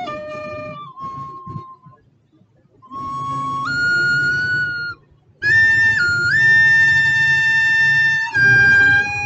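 A recorder played solo: a slow melody of long held single notes, with short pauses between phrases about two seconds in and again about five seconds in.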